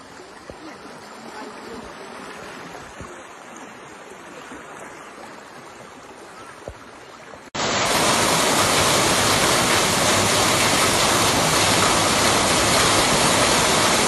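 Rushing floodwater of a swollen river, a steady, moderate noise. About seven and a half seconds in it cuts abruptly to the much louder, steady noise of torrential rain pouring onto a flooded street, with water running across the road.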